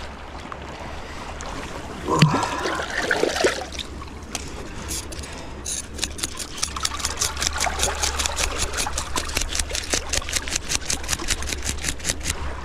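A knife scraping the scales off a silver bream in quick, even strokes. They start sparsely about five seconds in, then run at about six a second until near the end. A brief loud pitched sound about two seconds in comes before the scraping.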